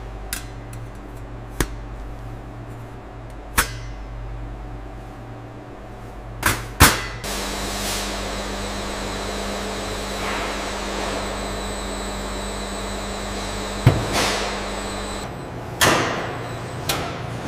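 Steady hum of processing-room machinery, broken now and then by sharp knocks and clicks of cheese and steel equipment being handled on stainless steel, the loudest about seven seconds in. The hum changes in tone twice.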